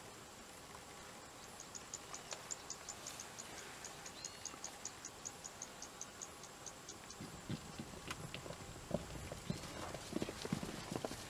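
Galloping zebra hoofbeats on dry ground, faint at first and growing louder and quicker from about seven seconds in. Before them, a faint rapid high ticking runs at about five ticks a second.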